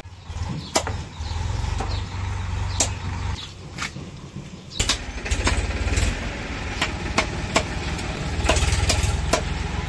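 Sharp knocks of a heavy curved blade chopping raw chicken on a wooden chopping stump, about one or two a second, over the steady low rumble of an engine running.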